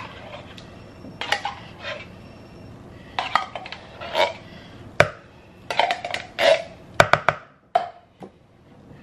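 A can opener clicking, scraping and clanking on a metal food can in irregular bursts, with several sharp knocks in the second half; the opener is giving trouble.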